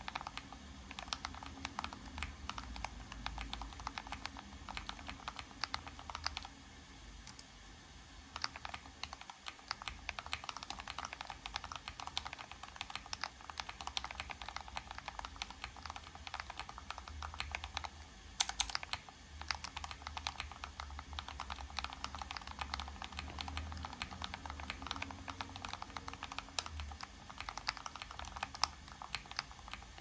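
Fast typing on split mechanical keyboards: a rapid, continuous run of key clicks at around 80 words a minute. The clicking thins out briefly about seven seconds in, and there is one louder clatter of keys a little past halfway.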